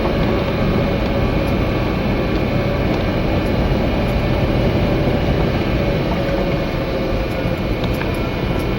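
1987 Ford Ranger pickup driving over a rough dirt field road, heard from inside the cab: steady engine and road noise with a faint steady whine.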